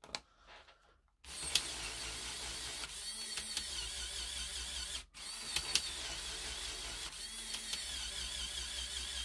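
Electric motors of a Mould King 13144 Tatra T813 brick-built model running its plastic gear drivetrain in neutral: a steady whirring with a wavering high whine and a few clicks. It starts about a second in, stops for a moment about five seconds in, and runs again.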